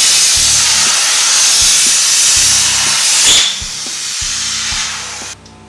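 CNC plasma torch cutting 14-gauge steel sheet: the steady loud hiss of the plasma arc starts at once, drops in loudness a little past halfway, and cuts off shortly before the end.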